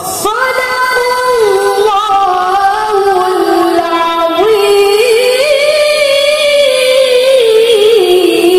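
A woman's solo voice, unaccompanied, chanting long melismatic phrases with ornamented held notes, in the style of Islamic vocal recitation. A fresh phrase begins just after the start, and the last note is held steady near the end.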